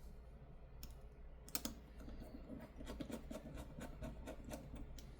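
Faint, irregular light clicks and ticks, a few a second, from hands and small tools working on an opened smartphone while its screen connector is pressed and secured, over a steady low hum.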